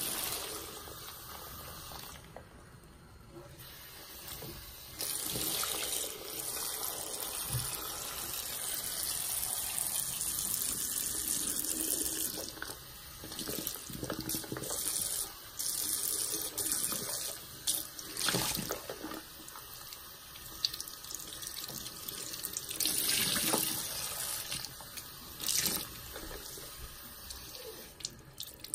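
A tap running into a bathroom sink while a soapy grout sponge is held under the stream and squeezed, rinsing the lather out. Water gushes and splashes from the sponge in repeated louder surges over the steady flow.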